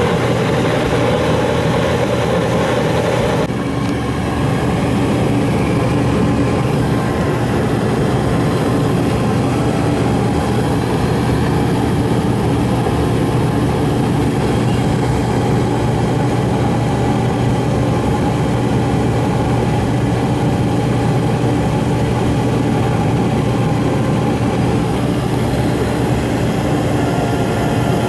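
Gas furnace running: burners firing and the blower moving air, a steady loud drone with a strong low hum. A higher whir in the sound drops out about three and a half seconds in.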